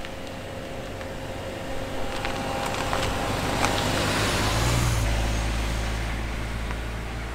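A Kia Ray turbo petrol car driving up and past on a narrow, icy road: its engine and tyre noise grow louder to a peak about four to five seconds in, with a few light clicks along the way. After that there is a steadier low rumble as it drives on.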